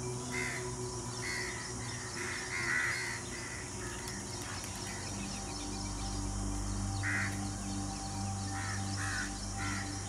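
Harsh, repeated bird calls like cawing over a low, sustained music drone. The calls come in a cluster over the first three seconds, then once about seven seconds in, then several more near the end.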